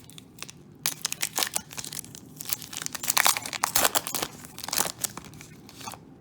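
Crinkling and rustling of a foil trading-card pack and cards being handled, a run of sharp, irregular crackles that is busiest about three to five seconds in.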